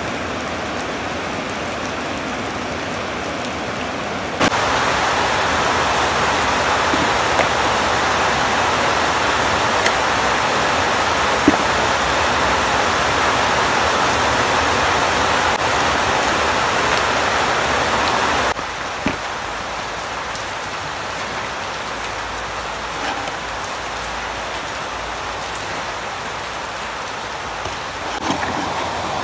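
Rain falling steadily, a constant hiss that gets louder about four seconds in and drops back down about eighteen seconds in.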